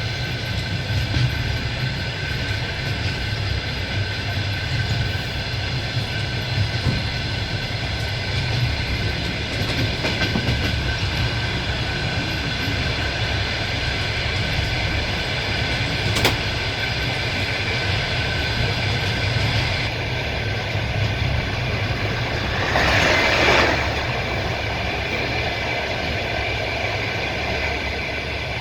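Passenger train running at speed, heard from a carriage window: a steady rumble of wheels on the rails with the clatter of the wheels and an occasional knock. About two-thirds in, a short, louder rush of noise.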